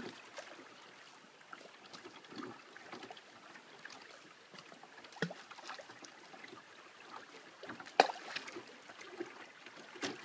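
Shallow river water trickling and burbling over stones, a light, even patter of small splashes. A few sharp clicks stand out, the loudest about eight seconds in.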